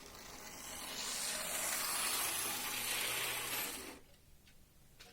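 DCC-equipped model railway motor coach running along the track at its top speed step: a steady rush of motor and wheel noise that builds over the first second and cuts off suddenly after about four seconds.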